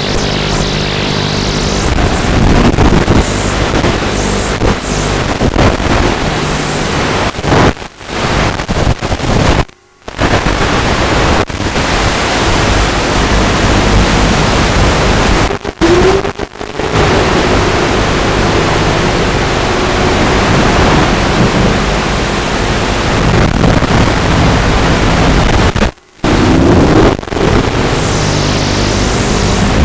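Walkera F210 racing quadcopter in flight: a loud, steady rush of propeller wash and wind with a motor tone that shifts in pitch with the throttle. The sound drops out completely for moments a few times.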